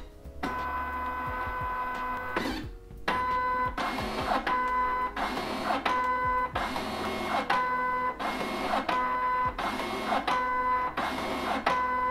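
IDP Smart 30 ID card printer running its cleaning cycle. Its card-feed motor whines, stopping and starting again and again, as the cleaning card is driven over the rollers.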